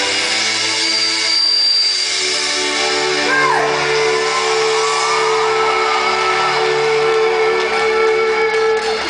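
Sustained keyboard synthesizer chords on a live concert stage, held steady, with audience members shouting and whooping over them: one falling whoop about three and a half seconds in, then a long wavering shout.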